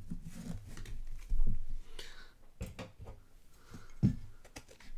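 Handling noise as trading cards are sorted on a table: a few soft knocks and thumps with light rustling between them, the loudest about one and a half seconds in.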